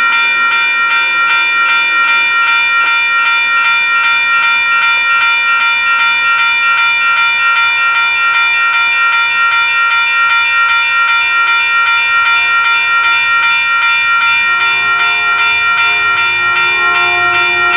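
Railroad grade-crossing warning bell ringing in rapid, even strikes while the gates are down and the signals flash, warning of an approaching train. A fainter, lower tone joins in the last few seconds as the train draws near.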